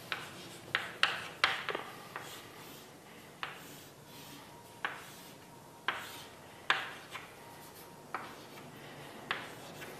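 About a dozen light, sharp taps and clicks at irregular intervals, several bunched together in the first two seconds, over faint room tone.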